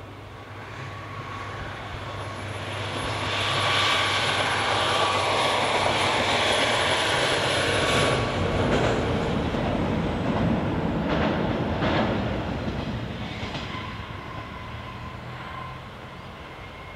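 Chizu Express HOT3500 diesel railcar passing: its engine and running noise grow louder over a few seconds, stay loud, then fade away. There are a couple of sharp clacks past the middle.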